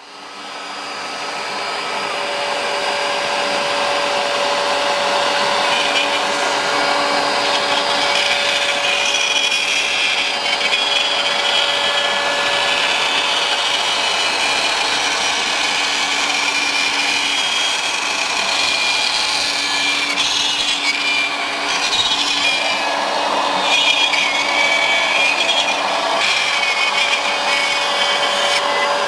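CNC Shark HD Pro router running steadily with its router spindle cutting into wood. There is a high-pitched cutting noise that rises and falls as the bit moves through the workpiece.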